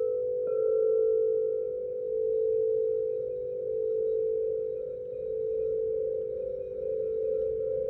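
Quartz crystal singing bowl tuned to 528 Hz, ringing with one sustained pure tone that slowly swells and fades. A light tick and a faint higher overtone come in about half a second in.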